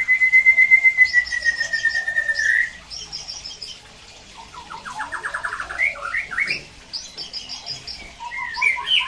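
White-rumped shamas singing: one long, steady, slightly falling whistle held for about two and a half seconds with a fast rattling phrase above it, then a quick trill and scattered chirps, with another burst of notes near the end.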